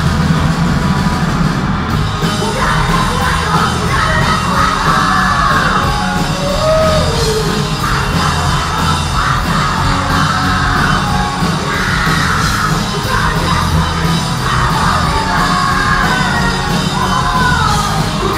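Punk rock band playing live: distorted electric guitars, bass and drums, with a singer's yelled vocals over them, loud and steady throughout.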